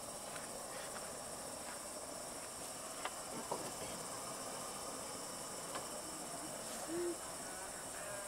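Crickets chirring steadily in the night. A few faint clicks and a short low tone about seven seconds in stand out above them.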